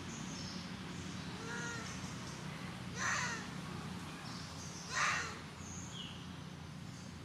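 Two loud, harsh animal calls about two seconds apart, each about half a second long, with faint high bird chirps between them.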